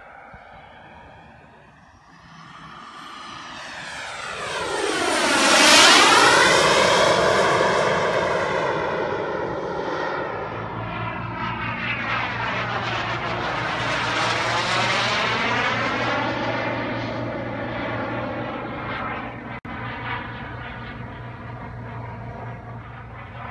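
Lockheed F-104 Starfighter's J79 turbojet on a flyby: the jet roar swells to its loudest about six seconds in as the aircraft passes, with a sweeping whoosh that slides down and back up in pitch. It then stays loud, sweeps again a few seconds later, and slowly fades toward the end.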